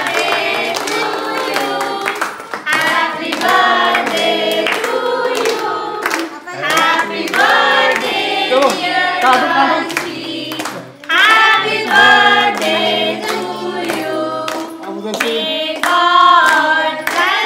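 A group singing together, with hands clapping in rhythm and musical accompaniment underneath.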